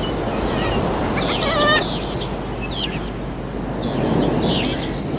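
Seaside ambience: a steady wash of surf and wind with birds calling over it. Short chirps come throughout, and one longer call with a clear pitch comes about a second and a half in.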